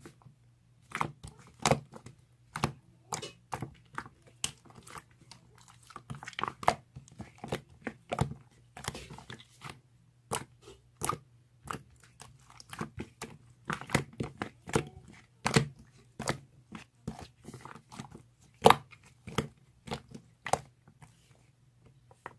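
Slime being squeezed and poked, giving irregular short sharp pops and crackles about two or three a second over a faint steady low hum.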